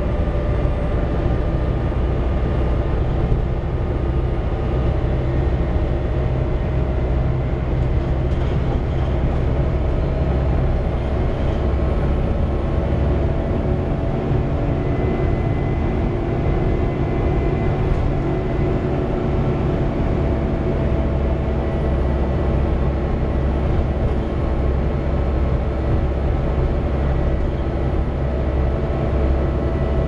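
Volvo B7TL double-decker bus driving, heard from inside on the upper deck: a steady low running rumble from the diesel engine and drivetrain, with a whine that holds a level pitch over it.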